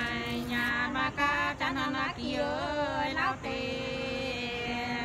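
A voice singing hát sli, the Nùng people's unaccompanied call-and-response love song, in long held notes that waver and slide.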